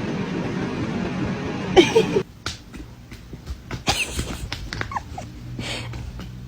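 Steady noisy background that cuts off abruptly about two seconds in, then a pet animal's short cries, rising and falling in pitch, among scattered clicks and knocks.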